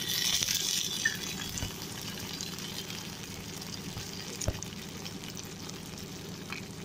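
Chopped onions and spices sizzling in hot mustard oil in a metal kadai, just after coriander powder has been added. The sizzle is stronger for the first second or so, then settles to a steady low sizzle.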